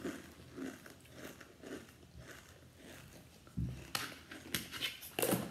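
A child chewing a mouthful of dry, crunchy food from a tub, with small irregular crunches. About three and a half seconds in comes a dull thump, followed by a few sharp clicks and knocks near the end.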